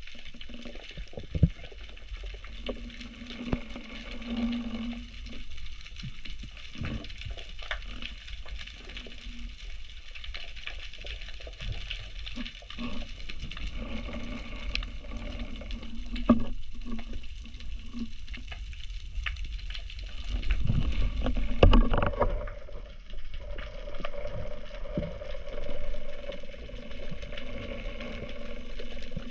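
Water sloshing and gurgling around the microphone, with a steady low rumble and scattered knocks and clicks; it swells louder about three quarters of the way through.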